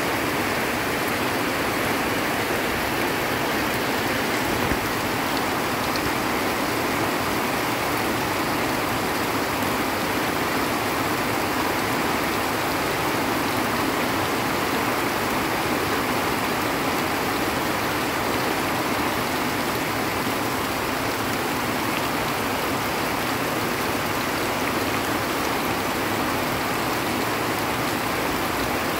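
Heavy tropical rain falling steadily on trees and dense vegetation, an unbroken hiss. Near the start, rainwater runoff rushes down a muddy slope.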